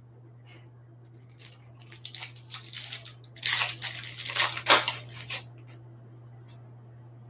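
Foil wrapper of a 2021 Bowman baseball card hobby pack crinkling and tearing as it is ripped open by hand. It comes as a run of crackly bursts, loudest a little past halfway.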